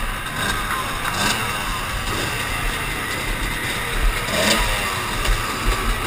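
Several off-road dirt bike engines idling and revving at once, their pitches rising and falling over one another.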